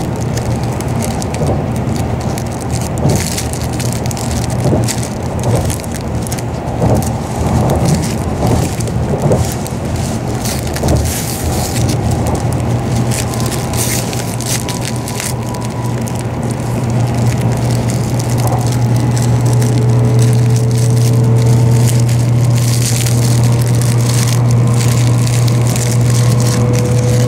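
Plastic film wrapper of a convenience-store onigiri crinkling and crackling as it is peeled open, over a steady low hum of a moving train that grows louder about halfway through. A faint rising whine joins in near the end.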